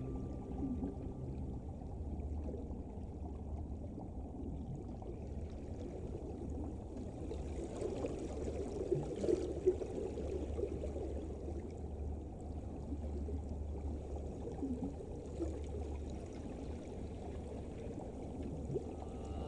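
Underwater river soundscape: a steady low rumble under an even wash of flowing, churning water, with a few brief louder sounds about halfway through.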